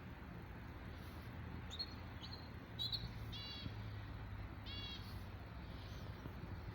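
A small bird chirping faintly: a few short high chirps about two to three seconds in, then two brief trilled calls near the middle, over a steady low hum.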